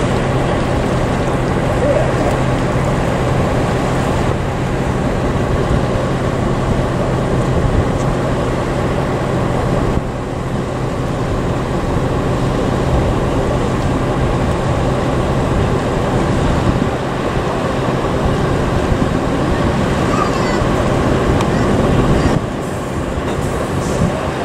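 Car ferry's engines running steadily with a low hum as it comes in to berth; the level dips briefly about ten seconds in and again near the end.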